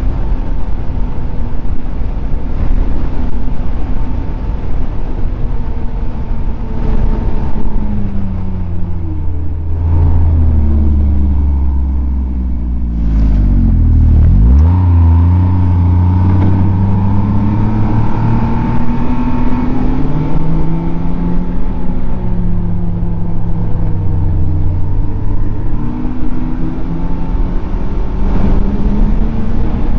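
Snowmobile engine running at trail speed, its pitch falling as it slows down to a low point about halfway through, then rising again as it speeds back up, with another easing and pick-up later on.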